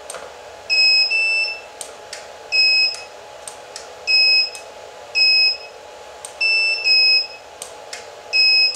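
Two Elinchrom D-Lite 4 studio strobes firing with sharp clicks and giving their short, high recycle-ready beeps, about eight beeps at uneven spacing, over a faint steady hum. Run together off one Vagabond Mini Lithium pack, the strobes fight for power and one has trouble keeping up with its recharging.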